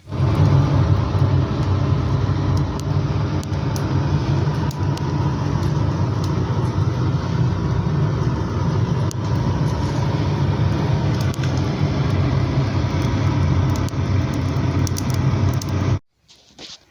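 Wood fire burning in a boiler's firebox, freshly lit from dry kindling: a steady low rumble of the flames with scattered faint crackles, cutting off suddenly near the end.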